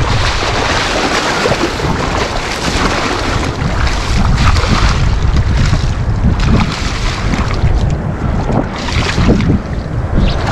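Wind buffeting the microphone, a loud uneven rumble and rush without pause.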